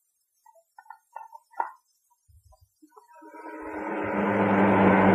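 A few sparse, soft musical notes, then a truck's engine approaching, growing steadily louder from about three seconds in.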